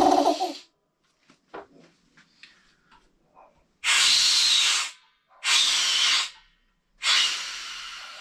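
Clarke Air Industrial compressor's electric motor and pump running, then cutting off about half a second in, followed by a few small clicks and knocks. Then three blasts of compressed air hiss out of the tank's outlet valve, the last one fading as the pressure drops: the rebuilt pump has built up pressure.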